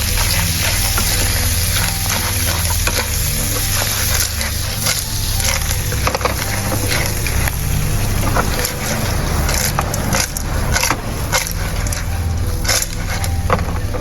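Oysters stir-fried in a pan with garlic: a steady sizzle with many quick clicks and clatters as they are stirred about.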